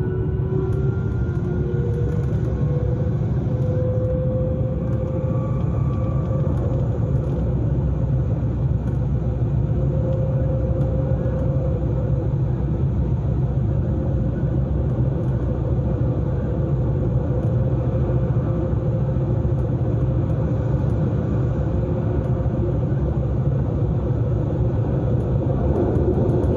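Electric S-Bahn commuter train running, heard from inside the carriage: a steady rumble of wheels on track. A faint whine rises in pitch over the first few seconds, then holds steady.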